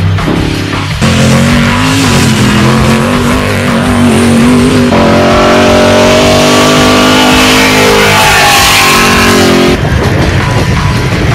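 Off-road race car engines running hard and revving, the pitch climbing in places. The sound changes abruptly about a second in, around halfway and near the end, as one vehicle's engine gives way to another's.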